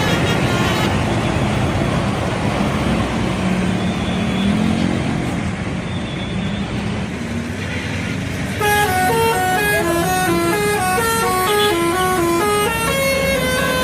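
Bus engine and road noise, then about two-thirds of the way in a 'telolet' bus horn (a set of air horns switched to play a tune) starts playing a quick melody of stepped notes that runs on to the end.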